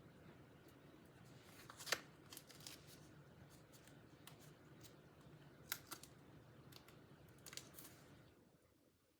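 Faint, scattered clicks and ticks of small craft handling: foam adhesive dimensionals being peeled off their backing sheet and pressed onto cardstock, with a sharper click about two seconds in.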